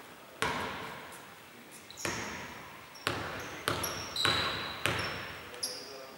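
A basketball bouncing on a hardwood court, about half a dozen sharp bounces at uneven intervals, each followed by a long echo in a big, mostly empty hall. Short high sneaker squeaks on the floor come between them.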